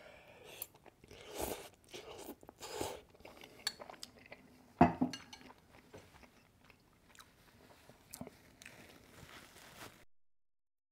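Close-miked mouth sounds of eating instant ramen noodles with chopsticks: two short slurps in the first three seconds, a sharp louder smack about five seconds in, then quiet chewing with small clicks. The sound cuts to silence about a second before the end.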